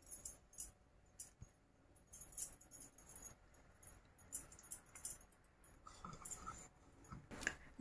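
Near silence with faint, scattered light jingles and ticks from hands spreading shredded mozzarella over meatballs in a glass baking dish, the wearer's beaded bracelet jingling as they move.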